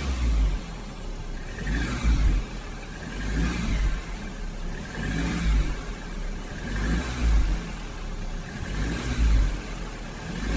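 Volkswagen Golf R turbocharged four-cylinder engine running on a cold start, with a low swell recurring about every one and a half to two seconds. The owner reports a ticking noise at cold start whose cause he has not found.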